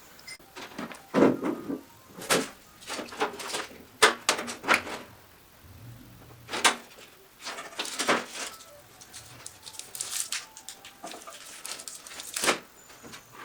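Hardware being handled during a PC build: an irregular run of clicks, taps and short rattles of plastic and metal parts, with the sharpest knocks near the start, about four seconds in and near the middle.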